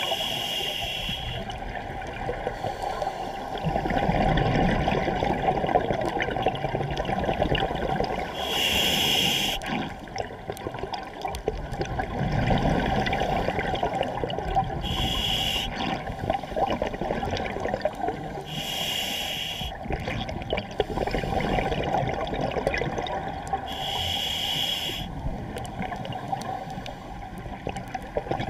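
Scuba diver breathing through a regulator underwater: a short hissing inhalation about every five to six seconds, five times, each followed by a long bubbling rumble of exhaled air.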